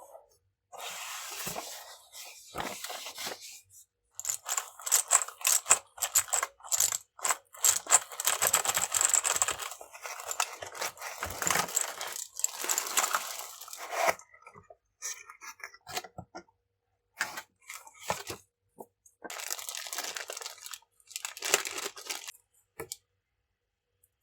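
Keyboard packaging being opened and handled: tearing, crinkling and scraping in irregular bursts with short pauses.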